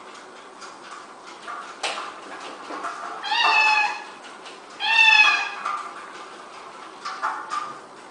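A cat meows twice, two drawn-out calls that fall slightly in pitch, about a second and a half apart near the middle, over light scattered clicks from a cat exercise wheel spinning as the cat runs in it.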